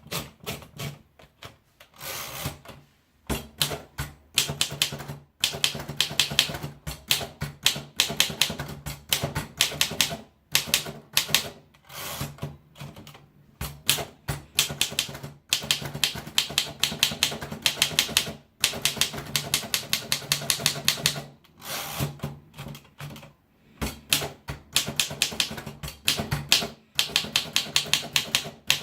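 Royal portable manual typewriter being typed on: runs of quick, sharp key strikes lasting a few seconds each, broken by short pauses.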